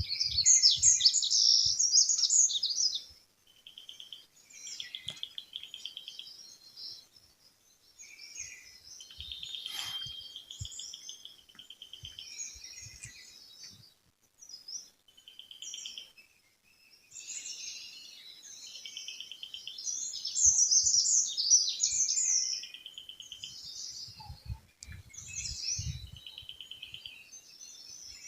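Several small songbirds singing and chirping: bouts of quick high chirps alternating with short buzzy trills, with brief pauses between phrases.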